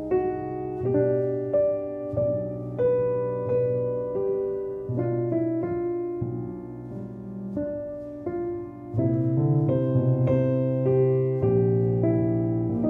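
Background piano music: a slow melody over held low notes, growing louder and fuller about nine seconds in.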